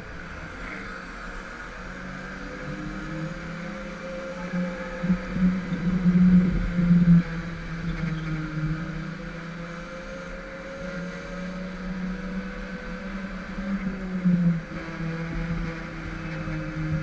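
Go-kart motor running at racing speed, heard from the driver's seat; its pitch rises and falls as the kart speeds up down the straights and slows for the corners, loudest about five to seven seconds in.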